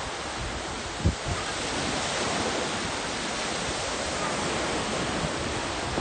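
Small waves breaking and washing up a sandy beach: a steady rush of surf, with a brief low thump about a second in.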